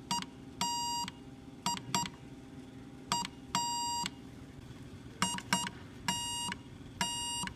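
Electronic Morse code buzzer sounding dots and dashes: a buzzy tone of about 1 kHz keyed in short and half-second beeps, about ten in all, in uneven groups over a low steady hum.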